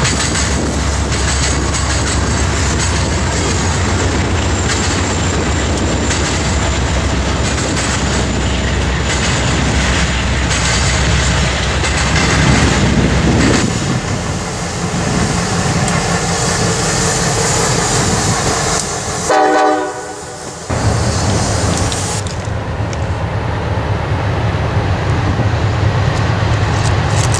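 Diesel freight locomotives running past on the main line, with a steady engine rumble and wheel noise on the rails. A train horn sounds briefly about two-thirds of the way through.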